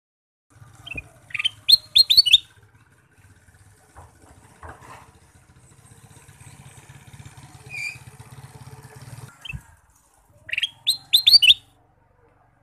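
Male kutilang emas (ruby-throated bulbul) singing: two loud bursts of quick, rising chattering notes, about a second in and again near the end, with fainter calls between them. A faint low hum runs underneath.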